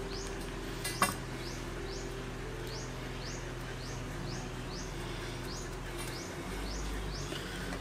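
A high, short rising chirp from a small animal, repeated evenly about twice a second, over a faint steady low hum. A single sharp click about a second in.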